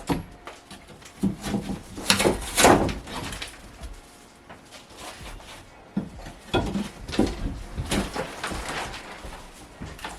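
Demolition work in a small room: irregular knocks, cracks and scrapes as material is broken out and pulled loose piece by piece. A louder crunching stretch comes about two seconds in, and a cluster of knocks follows a few seconds later.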